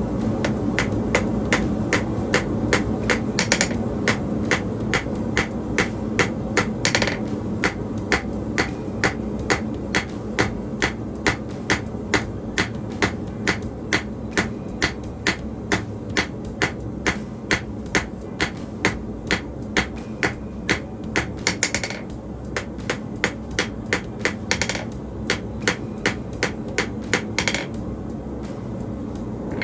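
Hand hammer striking a red-hot steel bar on an anvil, drawing it out into a long thin taper: a steady rhythm of about two blows a second, a few ringing brighter than the rest, with a short break about three-quarters of the way through. A steady low rumble runs underneath.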